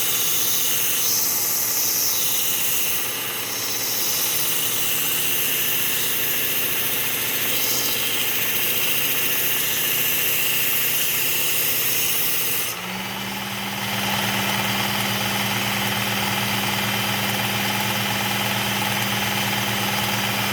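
Work Sharp Ken Onion Elite belt sharpener running a Cubitron 120-grit belt, with the steel edge of a pair of hand pruners being ground on it: a steady motor sound with a hissing grind. About two-thirds of the way through the grinding hiss drops away and a steadier, lower motor hum carries on.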